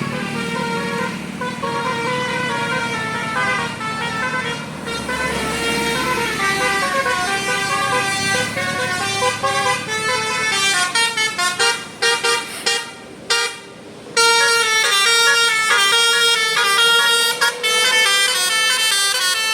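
Bus telolet horn, a multi-trumpet Basuri horn, playing a melody of stepped notes. About ten seconds in it breaks into rapid short toots, stops briefly, then resumes louder with a continuing tune.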